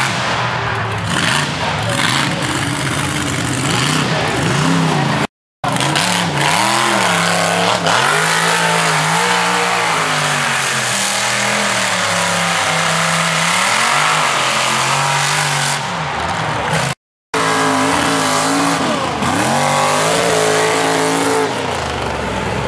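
Lifted mud-bog truck engines revving hard through a mud pit, the pitch climbing and falling over and over as the throttle is worked. The sound cuts out completely for a moment twice.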